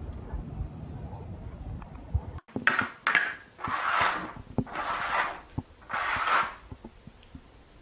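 Small plastic cups being slid around on a hard floor, four scraping sounds in quick succession, with light taps as the cups are set down.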